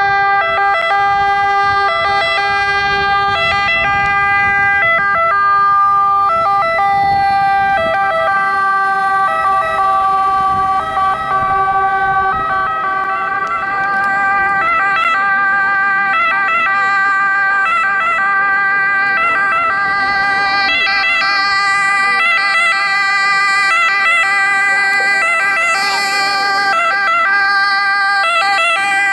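Ambulance siren sounding continuously as the ambulance drives in: a loud, steady, multi-toned note that breaks briefly at regular intervals in the second half.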